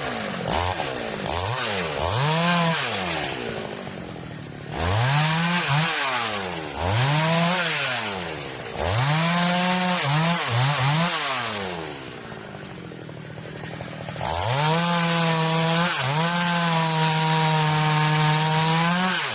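Chainsaw revved up and down in a series of short throttle blips, then held at high revs for about five seconds near the end while sawing through wood, stopping abruptly.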